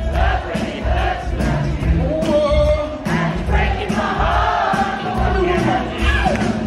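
Live band playing an upbeat pop song with a steady beat and sung vocals, heard from within the audience, with many voices in the crowd singing along.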